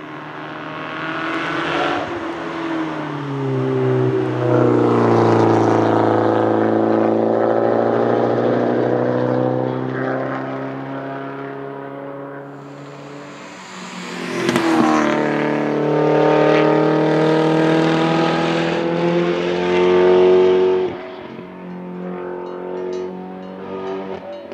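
Porsche 944 Turbo Cup race car's turbocharged 2.5-litre four-cylinder engine accelerating hard up the hill, engine note rising. A sharp crack comes about midway, followed by a second loud full-throttle run that cuts off abruptly a few seconds before the end.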